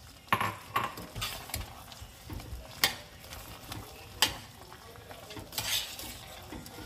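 A spoon stirring in a pan of simmering alfredo sauce, knocking and scraping against the pan at irregular intervals, with sizzling underneath.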